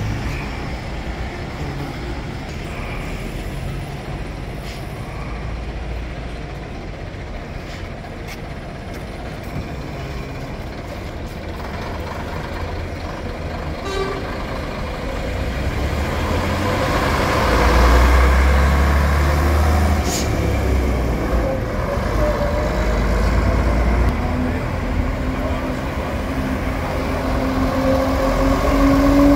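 Engine of a vintage London bus running with a heavy low rumble that grows louder about halfway through. Over the last five seconds the engine note rises steadily in pitch.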